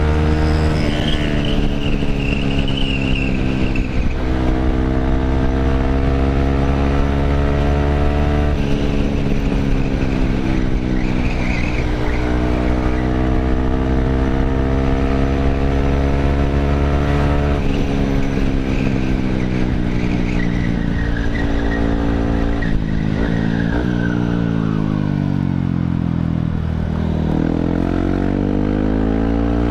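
Yamaha WR155 supermoto's single-cylinder engine through a GP7 Max 4.1 aftermarket exhaust, pulling hard through the gears. The pitch climbs and drops back at each upshift, then sinks as the bike slows and climbs again near the end, over rushing wind.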